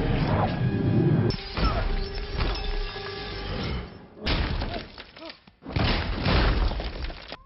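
Film sound effects of the Hulk slamming a body into a stone floor: heavy thuds with crashing, shattering debris. The din comes in three stretches, a long one at the start and two shorter ones after about four and six seconds.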